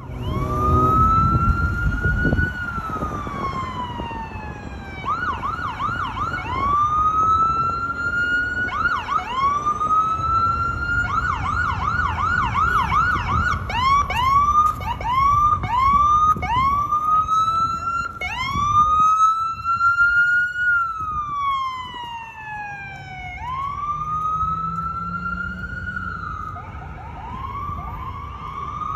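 Fire engine's electronic siren, switching back and forth between a slow rising-and-falling wail and a fast, rapidly repeating yelp. A low rumble is strongest in the first couple of seconds.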